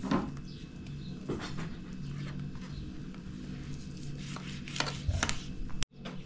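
A kitchen knife cutting up raw chicken on a metal tray, with a handful of short sharp clicks, the strongest near the start and two close together near the end, over a steady low hum.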